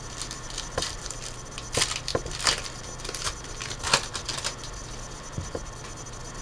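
Foil wrapper of a sealed football trading-card pack being torn open and crinkled: a string of sharp crackles and short tearing bursts, busiest in the middle, then quieter handling as the cards come out near the end.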